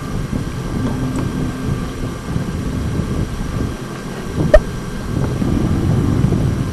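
Wind buffeting the camcorder microphone, a steady low rumble, with one sharp click a little past halfway.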